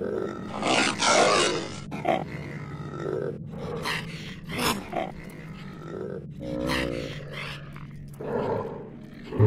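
Monster sound effects for animated creatures: a string of growls and snarls, with a long breathy hiss about a second in and a wavering growl about seven seconds in, over a faint steady low hum.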